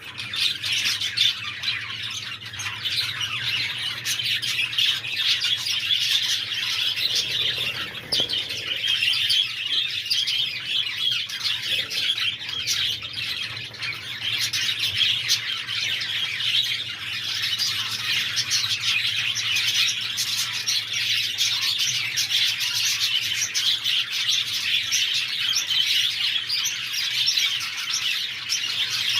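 Budgerigars chirping and chattering together, a dense warbling chatter that keeps on without a pause.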